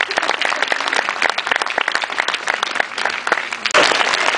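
Audience applauding: dense, steady clapping from many hands, which breaks off for an instant near the end and comes back louder.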